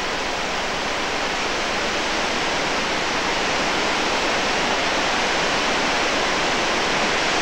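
Steady, unbroken rush of a waterfall's falling water.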